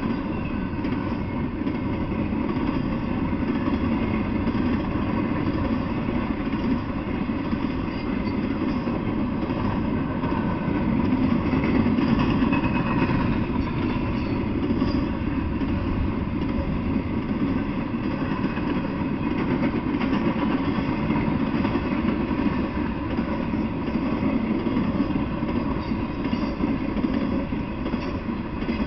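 Intermodal freight train's cars rolling past, a steady, continuous noise of steel wheels on the rails.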